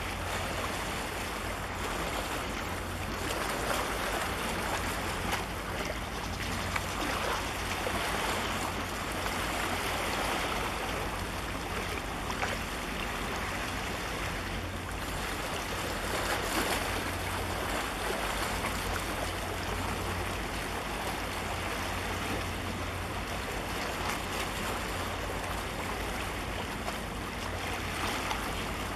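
Steady rushing noise of water and waves, with a low wind rumble on the microphone.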